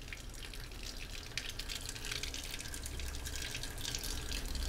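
Water running from a kitchen tap and splashing into a sink, an uneven spattering hiss.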